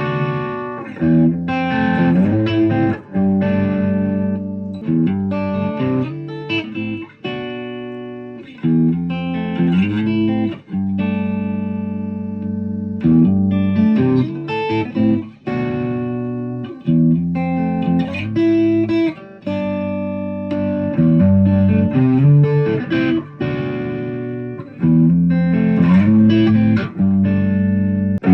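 Ibanez RG electric guitar being played: a run of chords and single notes that ring out, change every second or so, and pause briefly between phrases.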